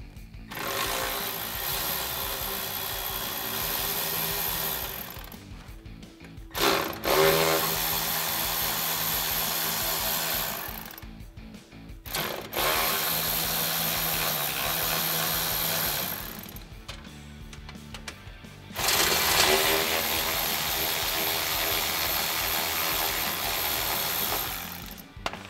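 Cordless power ratchet running in four separate bursts of a few seconds each, some starting with a short rising whine, as it spins off the 10 mm nuts holding the lower valance to the bumper.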